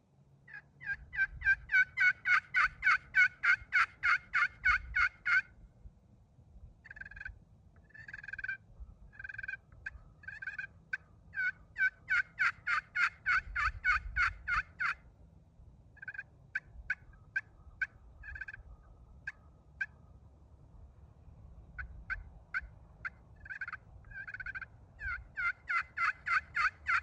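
Crystal-over-titanium turkey pot call played with a zebrawood striker, making wild-turkey hen calls. There are two fast runs of yelps at about five notes a second, with slower scattered single notes between them and a further series near the end.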